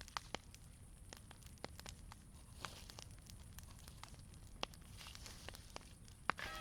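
Wood campfire crackling: scattered, irregular snaps and pops over the low, steady noise of the burning fire, with one sharp pop near the end the loudest.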